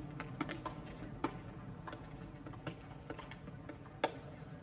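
Irregular sharp clicks and taps, a dozen or so scattered through, the loudest about four seconds in, over a faint low background murmur.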